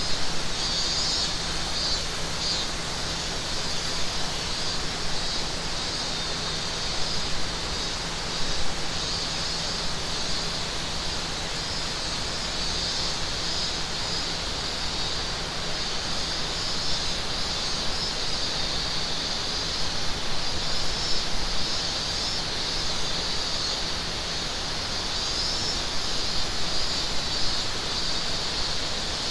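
Summer mountain forest ambience: a river rushing steadily under a continuous chorus of cicadas, with a higher, flickering cicada buzz above it.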